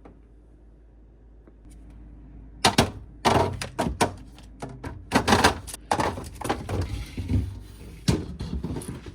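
Household items being handled: a quick run of knocks, clacks and thunks, like containers and doors being set down and moved, starting about two and a half seconds in after a faint hum.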